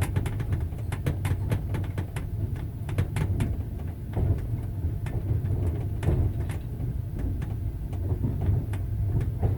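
Passenger train running: a steady low rumble with frequent sharp clicks and knocks as the wheels clack along the rails.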